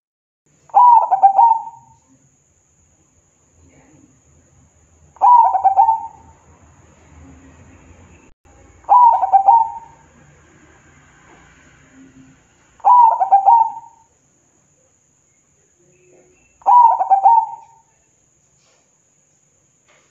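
Zebra dove (perkutut) cooing: five calls about four seconds apart, each a quick run of short notes rolling into a coo about a second long.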